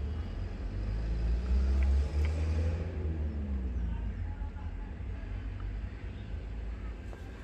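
Low rumble of a vehicle engine, its pitch rising to a peak about two and a half seconds in and then falling away.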